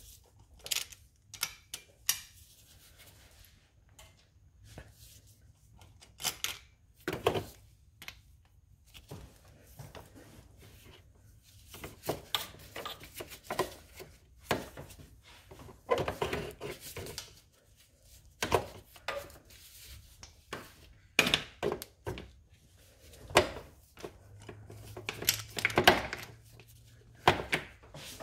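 Socket and long breaker bar clinking and knocking as they are fitted onto and turned on the head bolts of a Toyota 2AZ cylinder head while the bolts are angle-torqued 90 degrees. The sound is a run of irregular sharp clicks and knocks, some in quick clusters.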